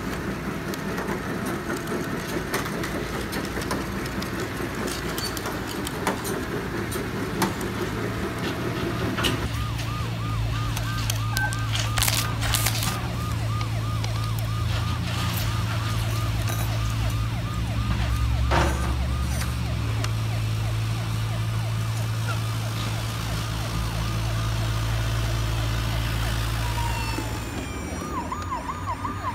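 Toy ambulance's electronic siren warbling quickly from about ten seconds in, over a steady low hum, with a few sharp clicks along the way. The warble grows clearer near the end.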